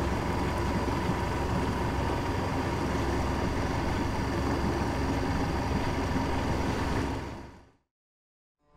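A sailboat's inboard engine running steadily under way, heard from on board as an even drone with a steady hum and whine. It fades out near the end.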